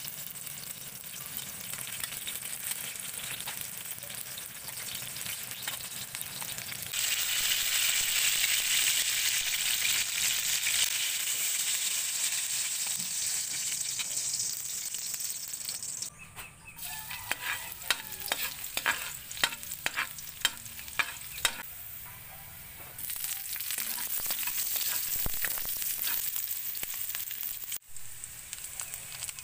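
Eggplant slices frying in oil in a metal wok, a steady sizzle that grows louder a few seconds in, with metal tongs clicking against the wok about a dozen times as the pieces are turned. Near the end, sliced onions sizzle in hot oil.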